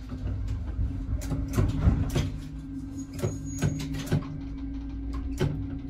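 AKN VTA diesel railcar (built 1993) standing with a steady engine hum while its passenger doors close, giving a series of clunks and knocks, with a short high beep about three seconds in.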